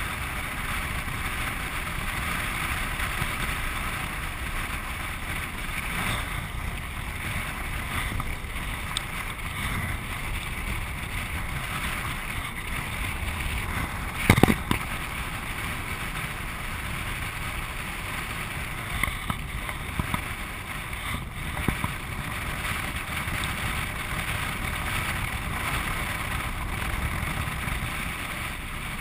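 Land sailer running across a dry lake bed: a steady rush of wind over the microphone and low rumble of the moving craft. A single sharp knock about halfway through, and a few small clicks later on.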